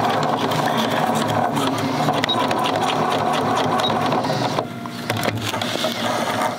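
Electric sewing machine stitching elastic onto a layered fabric face mask, running at a steady speed. It stops about two-thirds of the way through, leaving a few light clicks and rustles as the mask is handled.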